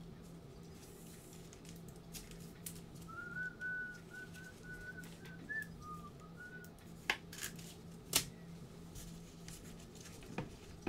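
A person softly whistling a short tune of several quick notes, followed by two sharp clicks about a second apart, over a steady low hum.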